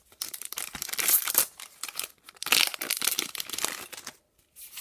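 Booster pack wrapper being crinkled and torn open by hand, in two long crackling stretches with a short pause between.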